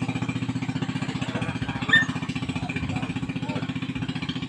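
Small boat engine running steadily with an even, rapid chugging beat, as from a motorized outrigger banca coming down the channel. A short call from a voice cuts in about two seconds in.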